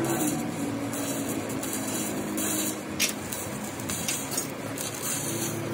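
Stick (arc) welding on a steel crankshaft: a steady crackling hiss from the arc, with one sharp snap about three seconds in and a faint low hum underneath.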